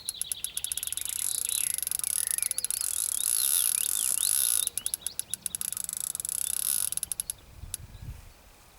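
Fishing reel clicking in a fast, dense run while a hooked fish is played, thinning to separate clicks about seven seconds in.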